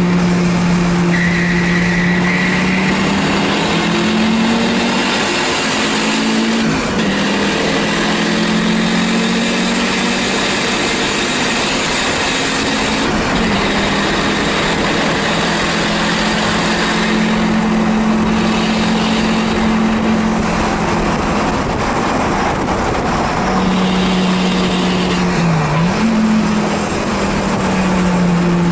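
1984 Audi 4000 race car's engine running hard on track, heard from inside the stripped, roll-caged cabin. Its pitch climbs and drops several times as the car is driven through the gears.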